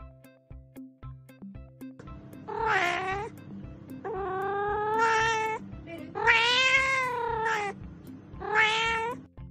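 A cat meowing loudly four times: long drawn-out calls that rise and fall in pitch, the middle two the longest. Background music with a steady beat plays throughout.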